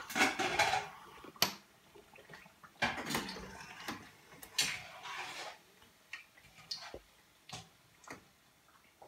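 Kitchen utensils and dishes clinking and scraping: a few short scrapes and several separate sharp clinks, with quiet gaps between.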